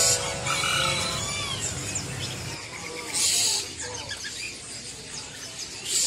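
Caged birds chirping and calling, with a harsh screech about three seconds in and another at the end. A ringing chime fades out in the first half second.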